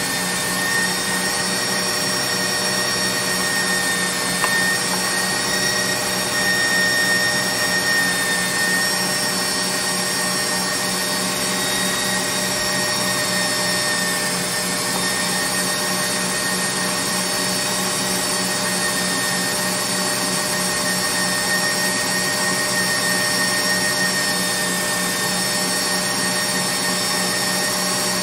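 KitchenAid stand mixer motor running steadily, driving the Gourmet Pasta Press attachment as it extrudes spaghetti: an even electric-motor hum with a constant high whine.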